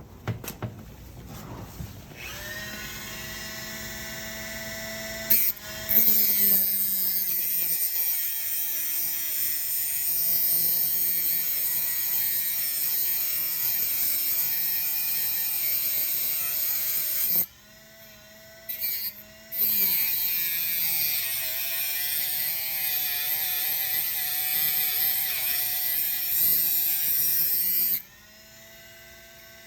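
Dremel 4000 rotary tool with a metal cutting wheel whining up to speed, then grinding steadily into a steel bike U-lock. The grinding stops for a couple of seconds a little past halfway and again near the end, leaving the motor whining freely.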